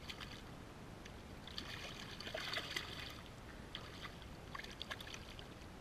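Water splashing and trickling as a hand is swished in the lake beside a kayak, in two bouts, the first and louder one about a second and a half in.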